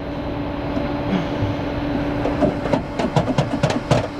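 Steady hum of an idling truck engine, then, about three seconds in, a quick irregular run of metal clicks and rattles as a tie-down strap and its hardware are handled.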